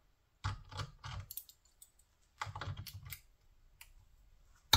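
Locking pliers clicking and rattling on a steel stud in an LS intake manifold's throttle-body flange as the stud is worked out: two short bursts of quick small metal clicks, then one loud sharp snap near the end.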